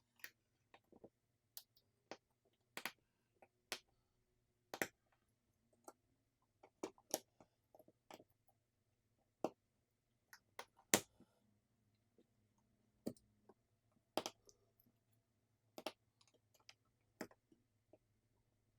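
Sparse, irregular small clicks and taps of a smartphone's parts and small tools being handled as the phone is put back together, the loudest click about eleven seconds in, over a faint steady low hum.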